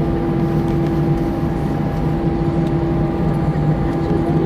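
Steady cabin drone of an Airbus A319 taxiing after landing, its engines at idle, with a constant hum of a few fixed tones over a low rumble, heard from inside the cabin.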